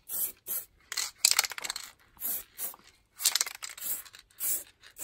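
Aerosol can of U-Pol acid etch primer hissing in about a dozen short spray bursts, with one longer spray lasting about a second, as a light coat goes onto bare aluminium body panels.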